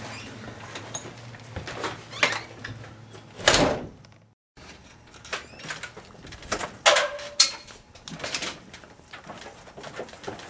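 Scattered knocks, clicks and rustles over a low hum, with one loud scraping thud about three and a half seconds in. The sound drops out to dead silence for a moment just after four seconds, then more sharp knocks follow without the hum.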